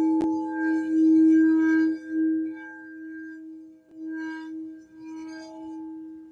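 Crystal singing bowl sounding a sustained pure tone, its loudness swelling and dipping about once a second as it is played around the rim, while a higher bowl tone fades out early on. A single sharp click sounds just after the start.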